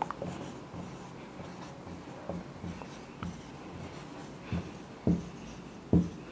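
Marker pen writing on a whiteboard: short strokes and light taps of the pen tip, with a few louder taps late on.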